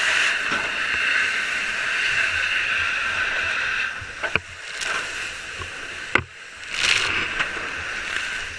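Water from a fire hose spraying with a steady hissing rush, which weakens about four seconds in and comes back strongly near the end. Two sharp knocks come in the middle.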